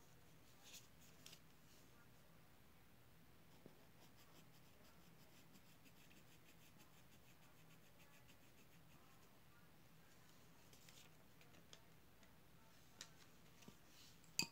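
Near silence: room tone with a few faint small clicks and taps from hands working with small objects at a table, the sharpest click right at the end.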